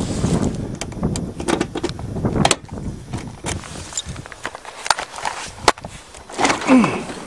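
Car trunk being unlocked and opened: rustling handling noise, then scattered sharp clicks and knocks of keys and latch. A short sound falling in pitch comes near the end.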